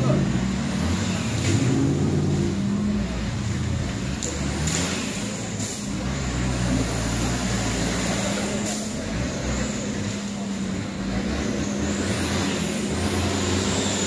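Engine of a modified off-road 4x4 running in the mud, its speed rising and falling a few times as the driver works the throttle.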